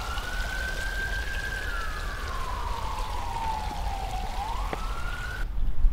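An emergency vehicle siren wailing, its pitch rising and falling slowly over a steady hiss of city background noise, cutting off suddenly near the end.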